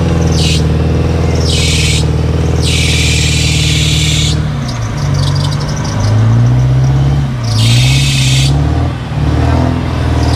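Off-road 4x4's engine held at steady high revs, then revving up and down from about four and a half seconds in as the vehicle works up a deep mud slope on a winch cable. Several bursts of loud hiss come and go over the engine.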